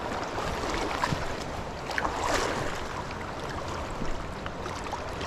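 River water running over rocks, with a louder splash about two seconds in.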